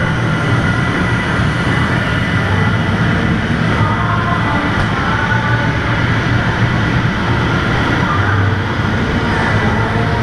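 Steady mechanical rumble with a low hum from the inflatable wrecking-ball game's blower and drive machinery, running without pause.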